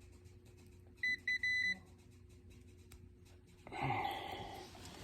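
Multimeter continuity beeper sounding three times about a second in, two short beeps then a longer one, showing a closed circuit across the disconnected thermostat wire. A rustling handling noise follows near the end.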